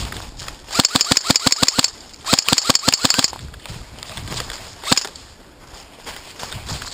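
Airsoft electric rifles (AEGs) firing two full-auto bursts of about ten rapid shots each, about a second apart, followed by a single shot near the end.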